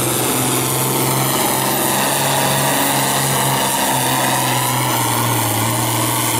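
Diesel engine of a Pro Farm pulling tractor running flat out under heavy load as it drags a weight-transfer sled, a steady engine note with a thin high whistle above it.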